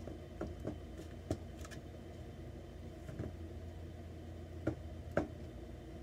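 Jiggly confetti slime being squeezed and worked by hand, giving scattered small clicks and pops, the two loudest near the end, over a steady low hum.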